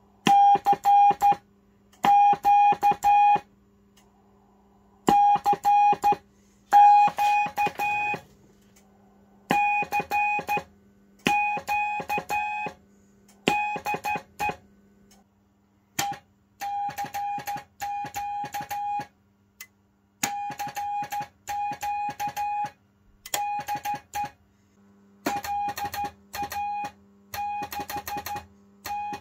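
Morse code (CW) sidetone from the receiver's loudspeaker: one steady mid-pitched tone keyed on and off in long and short elements while the transmitter sends telegraphy. A click sounds at each keying edge, over a faint low hum.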